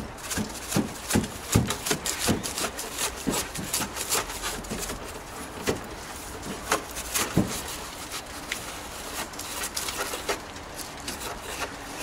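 Straw broom sweeping dirt and dust from a refrigerator's grimy base in quick, irregular scratchy strokes, busiest in the first few seconds and sparser after.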